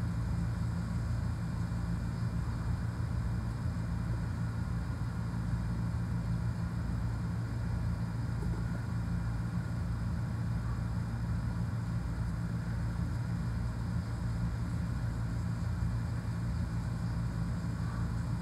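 Steady low hum of a running machine.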